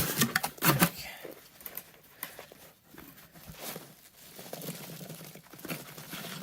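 Packaging being handled and unwrapped, crinkling and tearing, with sharp crackles in the first second and quieter rustling after.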